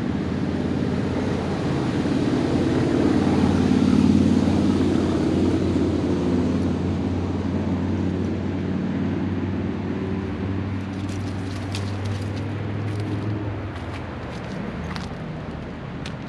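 Drone of a vehicle engine, swelling to its loudest about four seconds in and then slowly fading. A few light clicks and rustles come near the end.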